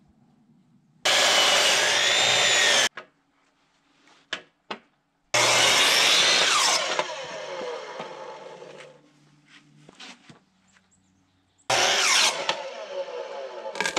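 Makita sliding miter saw cutting rough-cut lumber in three short runs. After the middle cut the motor's whine falls away as the blade spins down.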